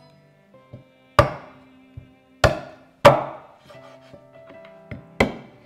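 Cleaver chopping through chicken on a cutting board: four heavy strikes, the middle three close together and the last about two seconds later.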